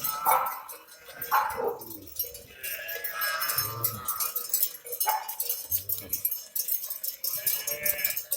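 A herd of livestock calling again and again, with bells jingling among them.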